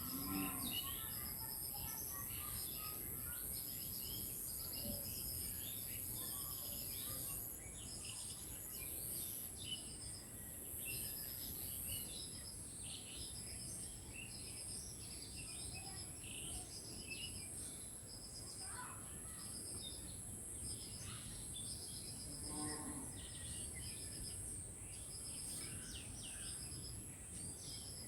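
Village birds chirping and calling in short repeated phrases, over a steady high-pitched insect drone.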